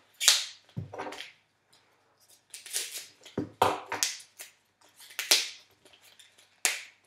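Raw artichokes being trimmed and handled by hand: a series of sharp, crisp snaps at irregular intervals, with a couple of dull knocks.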